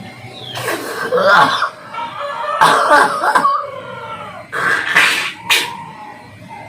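A person coughing and clearing the throat in three bouts, each about a second long, bringing up the thick mucus loosened by gurah herbal nasal drops.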